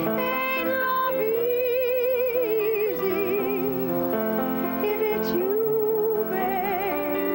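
A woman singing with piano accompaniment, holding long notes with strong vibrato.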